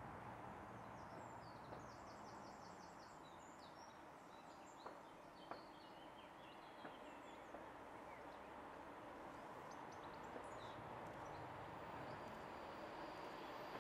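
Birds chirping, with a quick run of repeated high notes in the first couple of seconds and scattered calls after, over a faint steady background. A low rumble from the distant approaching freight train slowly builds toward the end.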